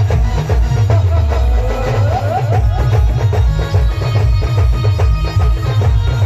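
Band music with a heavy, steady drum beat and a bass line, and a melody line on top that slides upward a few times about two seconds in.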